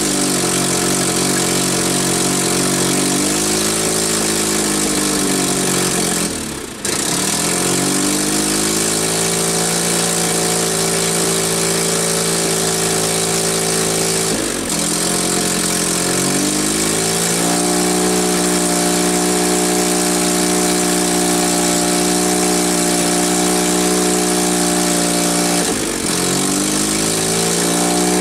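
Petrol engine on a Cat D4C crawler running steadily but three times sagging in speed and picking back up, once about six seconds in, once halfway and once near the end. The stumbling is what the owner takes for a petrol supply problem.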